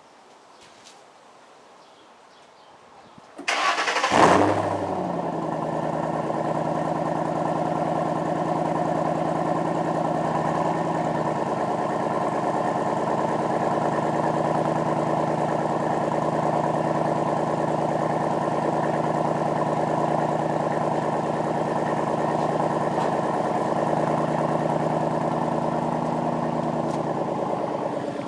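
A 2010 Ford Mustang GT's 4.6-litre V8 cranks and catches about three and a half seconds in, flares briefly, then settles into a steady, deep idle. It is heard at the tailpipes of a Pypes Pype Bomb exhaust, a muffler delete with resonators in the 4-inch tips.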